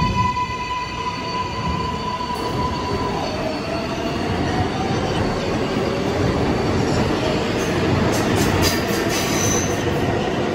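New York City subway train's electric traction motors holding a steady whine that fades after about three seconds, giving way to the running noise of the wheels on the rails, with a few brief high wheel squeals near the end.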